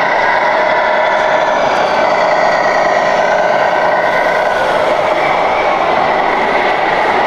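Electronic diesel-engine sound from a 1/14 scale RC truck's sound module, running steadily through its small speaker.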